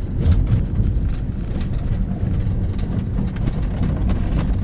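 Car cabin noise while driving: a steady low rumble of engine and tyres on the road, with frequent small knocks and rattles over it.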